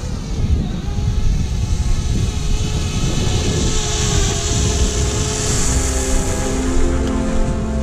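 Parrot Bebop quadcopter drone's propellers buzzing steadily as it hovers and flies, with wind rumbling on the microphone.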